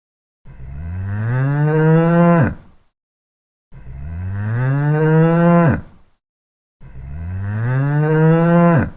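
A cow mooing three times. Each moo is a long low call that rises in pitch, grows louder and then drops off sharply at the end, with short pauses between the calls.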